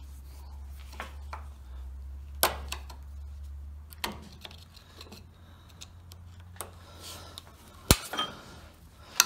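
Steel pry tool scraping and clicking against a U-joint's bearing cap while prying out a tight retaining circlip. Scattered sharp metallic clicks, the sharpest about eight seconds in.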